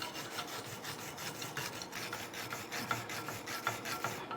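A hand tool scraping rapidly over a welded steel plate, a fast irregular rasping used to clean slag off the weld bead.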